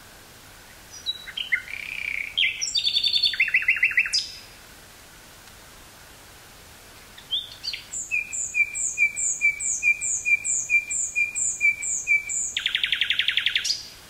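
Common nightingale singing two song phrases. The first starts about a second in and ends in a fast run of notes. The second follows a pause of about three seconds: a slow series of about a dozen repeated notes, finishing in a rapid trill near the end.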